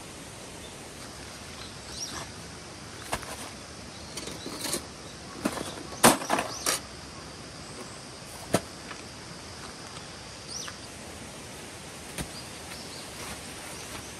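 Steady rush of a small stream flowing, with a dozen or so short knocks and clatters scattered over it, the loudest about six seconds in.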